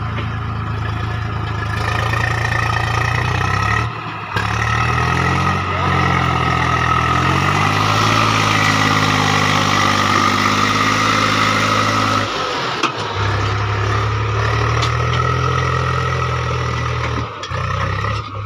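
Swaraj 735 FE tractor's three-cylinder diesel engine working under load, hauling an overloaded trolley of sand through deep mud. Its revs climb in the middle and settle again, and the sound breaks off briefly twice.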